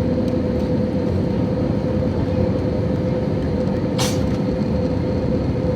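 Steady cabin noise of an Airbus A320neo airliner: engine and airflow rush with a steady hum, and a brief hiss about four seconds in.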